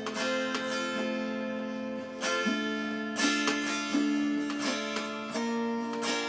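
Acoustic guitar strumming chords, an instrumental passage without singing.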